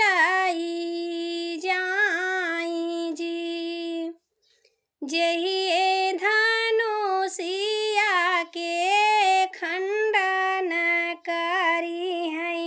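A woman singing an Awadhi wedding song (vivah geet) unaccompanied, in long held notes that bend up and down in pitch. The singing breaks off for under a second about four seconds in, then goes on.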